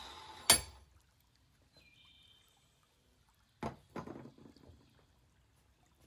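A sharp metallic knock about half a second in, then two softer clunks about three and a half and four seconds in: a bench vise being opened and a cast metal piece lifted out of its jaws.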